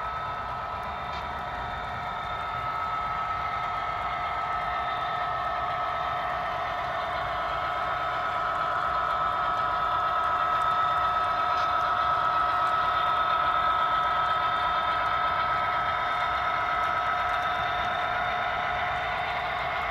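HO scale model freight train running past on the layout: a steady running drone with a couple of held pitches. It grows louder to a peak about halfway through as the SD70ACe model locomotive passes close, then eases off slightly.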